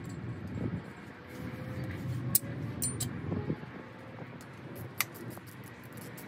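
Light metallic clicks and clinks of tools and engine parts being handled, a few sharp ones standing out, over a low steady rumble.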